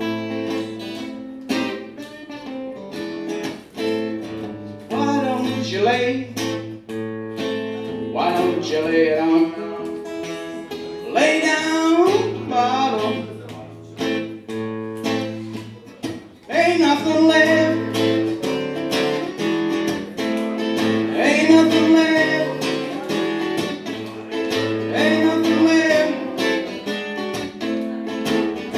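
Acoustic guitar strummed in steady chords with a man singing over it, a live song; the singing comes in phrases from about five seconds in.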